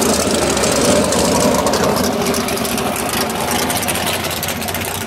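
Drag-racing car engine idling loud and steady, a rapid even run of firing pulses.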